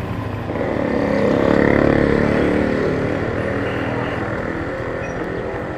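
Small motor scooter's engine running as it rides. It picks up about half a second in, then eases off after about two seconds as the scooter slows toward the kerb.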